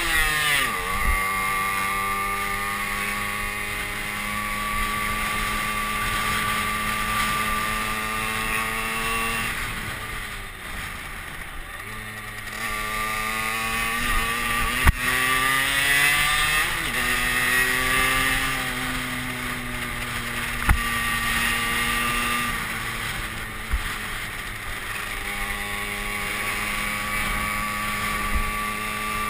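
Derbi Senda moped engine running at a steady cruise on the move, with wind rushing over the microphone. About ten seconds in the engine note falls as the throttle is eased, then climbs again as it accelerates, with a few brief knocks along the way.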